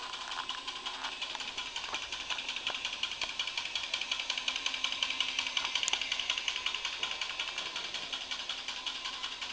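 Battery-operated toy train set running around its track: a rapid, even clicking of its geared motor and wheels, growing louder as the locomotive passes close about five seconds in, then easing off.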